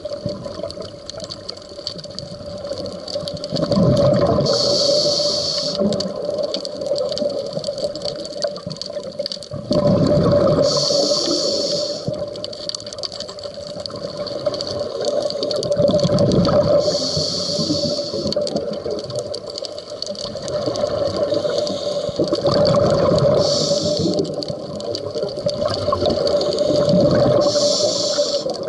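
Scuba diver breathing through a regulator underwater: five breath cycles about six seconds apart, each a bubbling rush of exhaust bubbles and a hiss from the demand valve. A steady hum runs underneath.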